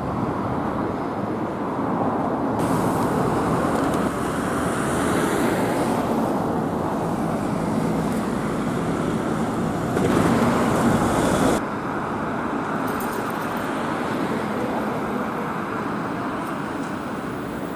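Road traffic noise with a double-decker bus driving past. The sound changes abruptly a few times, loudest just before it drops sharply about two-thirds of the way through.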